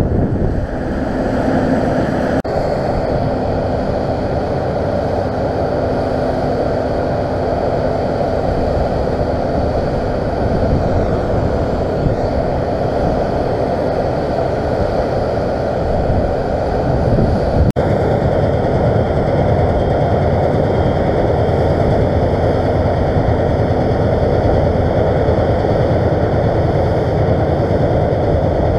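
Diesel engines of farm machinery, tractors and a combine harvester, running steadily under a continuous rushing noise with a heavy low rumble.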